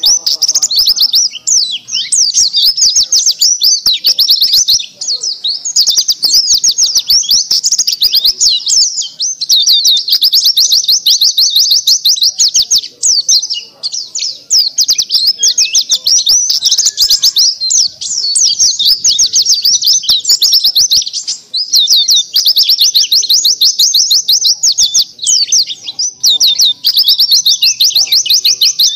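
Pleci dakun white-eye in full song: a fast, high-pitched twittering warble that runs on almost without a break, pausing only briefly every few seconds.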